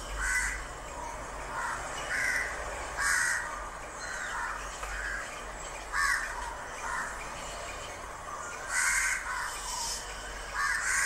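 Raven calling: a string of loud, harsh caws, roughly one a second at uneven intervals.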